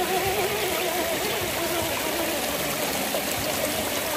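Running water, like a small stream, with a steady rushing hiss and a wavering whine over it.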